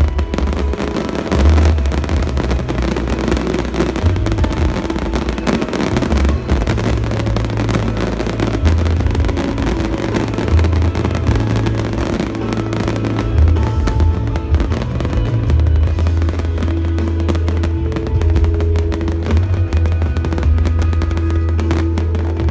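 Aerial fireworks bursting and crackling in rapid succession, over loud music with a heavy bass.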